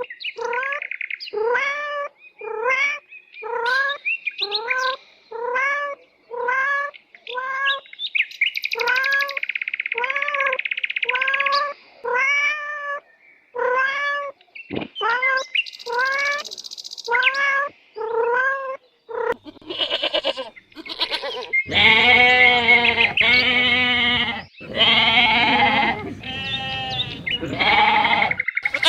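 Domestic farm animals calling: a long series of short calls that rise and fall in pitch, about one a second, then from about twenty seconds in, longer and louder calls with a deeper voice.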